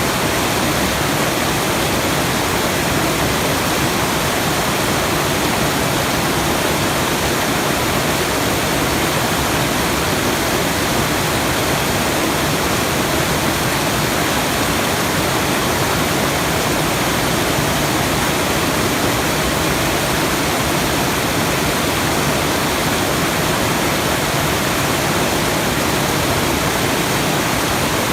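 Steady, unchanging rushing noise spread evenly from deep to high pitches, the kind of water-like noise track played as a sleep sound.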